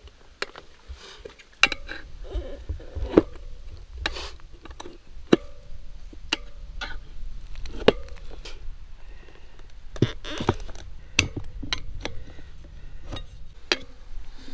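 Irregular metallic clinks, taps and knocks of hand tools working on a motorcycle wheel and tyre during a tyre change, a dozen or so sharp strikes with a low steady rumble beneath from about two seconds in.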